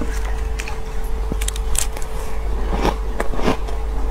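Metal spoon scooping and scraping crunchy purple shaved ice in a plastic cup, a series of short crisp crackling strokes, over a steady low hum.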